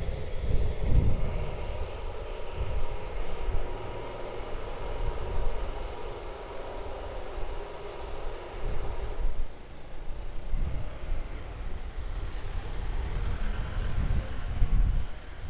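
Street traffic ambience: a steady engine drone for about the first nine seconds that stops suddenly, over low wind rumble on the microphone.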